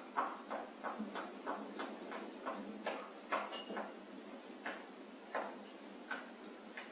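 A rat moving and feeding on a pipe, making a run of light clicks and scratches, about two to three a second at first and then sparser, with a short faint high-pitched tone about three and a half seconds in.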